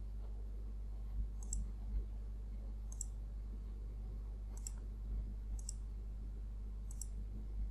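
Computer mouse button clicks, about six single clicks a second or so apart, as curves are picked for trimming in CAD software, over a low steady hum.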